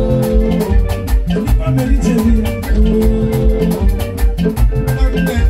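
Live band playing an upbeat groove with a steady beat: drum kit, bass, electric guitar and hand drums.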